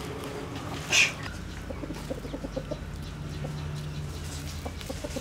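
Chickens clucking, with one short, louder high-pitched call about a second in, followed by a run of quick low clucks.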